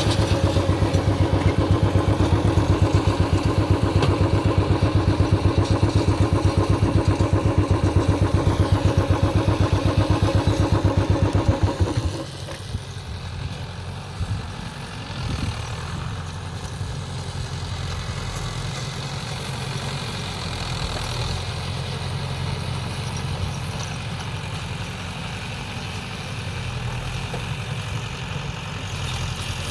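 Mahindra Yuvo 575 DI tractor's diesel engine working a baler, running loud with a fast, even pulsing. About twelve seconds in the sound drops suddenly to a quieter, steady running.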